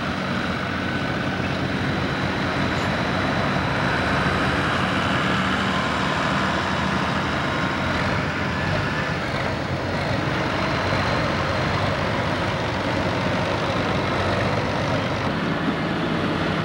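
Diesel farm tractor engines running steadily, with a tractor driving close by.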